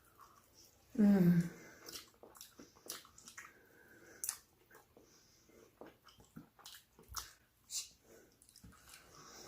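Close-miked eating sounds: scattered wet mouth clicks and smacks of chewing. About a second in there is one short, loud voice-like sound that falls in pitch.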